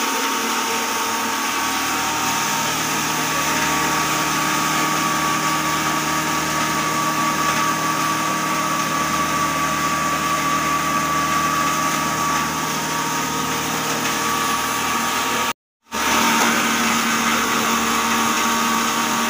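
Electric maize grinding mill driven by a 10 HP motor, running steadily while grinding maize into meal: a dense, even rush with a steady whine on top. The sound cuts out completely for a split second about three-quarters through, then carries on.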